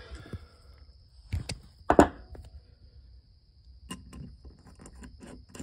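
A steel 9 mm nut driver knocking against a Mikuni VM36 carburetor's aluminium body as it is fitted onto the brass float needle seat, with two sharp knocks, the louder about two seconds in. Light clicks follow near the end as the loosened seat is spun out.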